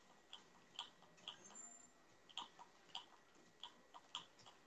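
Faint, irregular clicking from working a computer's controls, about a dozen clicks spread unevenly over a few seconds.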